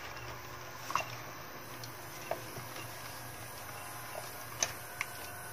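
Repaired UPS inverter running on charge with a low steady hum, while a clamp meter and the unit's plastic front panel are handled: a few small sharp clicks and taps, about one a second apart, the loudest a little past halfway.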